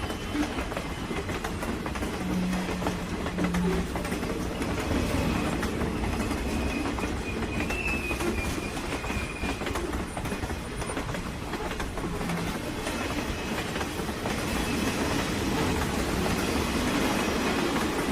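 Train running along the rails: a steady rumble and rattle of wheels on track. A faint high-pitched whine comes and goes.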